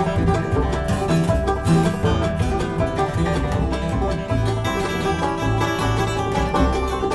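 A bluegrass string band playing an instrumental passage: rapid picked banjo over a plucked upright bass line.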